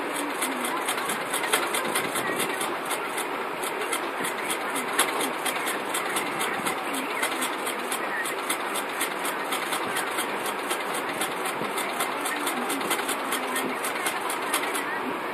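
Paper pages of a paperback manga volume being handled and turned by hand, with a few louder page flicks, over a steady mechanical whirr with rapid, even ticking at about five a second.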